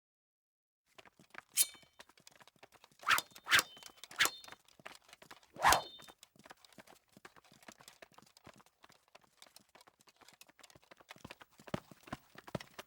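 A run of small clicks and knocks, with five louder, sharp hits in the first six seconds, several of them ringing briefly like metal.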